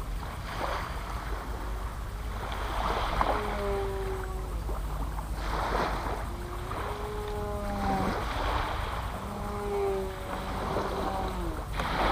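Distant propeller aircraft engine drone, its pitch fading in and out and sagging slightly as the plane flies overhead. Wind gusts on the microphone come and go every few seconds.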